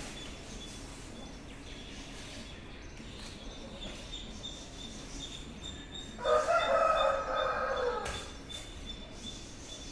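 A rooster crowing once, about six seconds in, a single call of about two seconds that dips in pitch at the end, over a faint steady high-pitched whine.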